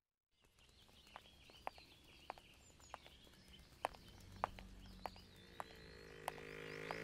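Faint birdsong with sharp, evenly spaced footsteps of heeled sandals on pavement, fading in after a moment of silence. Soft music swells in over the last couple of seconds.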